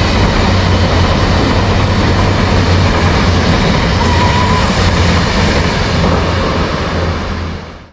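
Kaohsiung MRT metro train running, a steady rumble with a low hum that fades out near the end.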